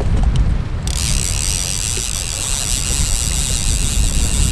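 Fishing reel being cranked, a steady high whirring ratchet that starts suddenly about a second in, as a trolling line is reeled in. Under it, wind rumble on the microphone.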